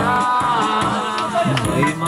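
Dance music playing loud, a wavering melody over full low accompaniment.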